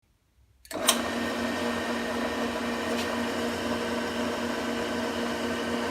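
Jet drill press running steadily with a constant motor hum, switched on with a click about a second in.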